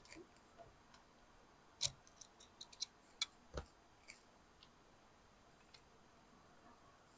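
Scattered light clicks and taps of small parts being handled on a car's steering column, the sharpest about two seconds in, with a duller knock a moment later; otherwise near silence.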